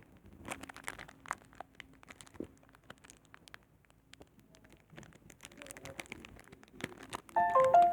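Foil Pokémon booster pack being handled, with scattered soft crinkles and small crackles. A brief pitched sound comes near the end.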